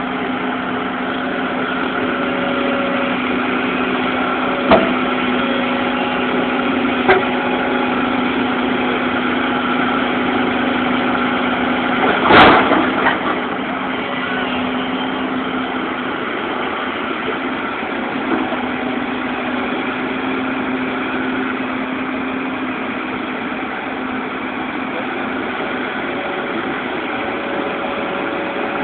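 Diesel engine of a bulldozer running steadily at low revs. Sharp knocks cut through it about five and seven seconds in, and a louder clank about twelve seconds in.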